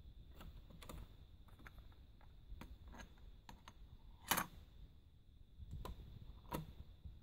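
Small clicks and clatter of a cassette being handled and loaded into the hinged cassette door of a TEAC Z-7000 cassette deck, with a sharper click about four seconds in and another near the end.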